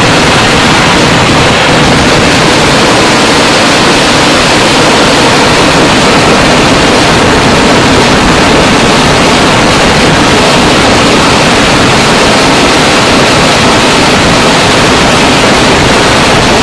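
Kerala temple-festival fireworks (vedikkettu) going off in a continuous dense barrage of firecrackers and aerial shells. The bangs run together into one steady, very loud wall of noise with no gaps, loud enough to overload the phone's microphone.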